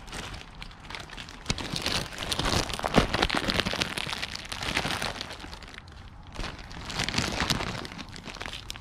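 Clear plastic packaging bag crinkling and rustling as a wrapped part is handled and unwrapped, in two louder stretches: from about a second and a half in to past the middle, and again near the end.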